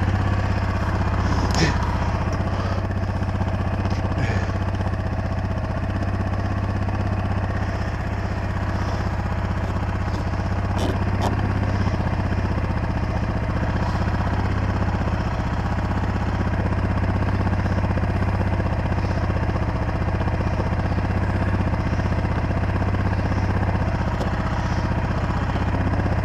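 Four-wheeler (ATV) engine running steadily at an even speed, with a few faint clicks in the first few seconds.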